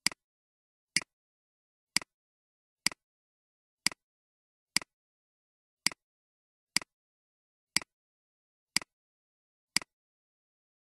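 Computer mouse clicks, about one a second. Each is a quick press-and-release pair with the second stroke weaker, made while clicking through a font dropdown menu.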